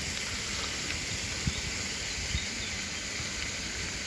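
Steady outdoor background hiss with low rumbling underneath and a couple of soft knocks, about one and a half and two and a half seconds in.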